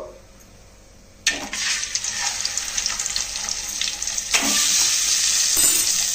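Hot oil and turmeric sizzling as boiled eggs are put into the pan: a hiss starts suddenly about a second in and grows louder about four seconds in as more eggs go in.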